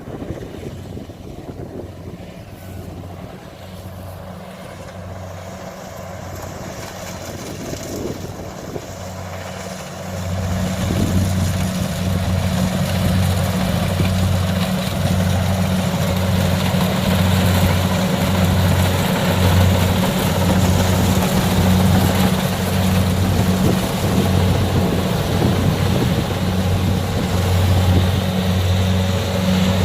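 Kubota DC70 combine harvester's diesel engine running with a steady low hum and a slow, even throb, growing louder about ten seconds in.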